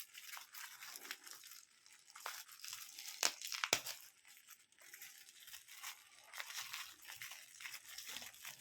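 Plastic blister packaging around a diecast model car being cut and pried open: faint crinkling and tearing with scattered sharp clicks, two louder snaps a little after three seconds in.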